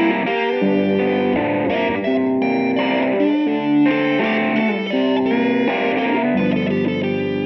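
Rock music played on electric guitar, a riff of held notes that change every half second or so.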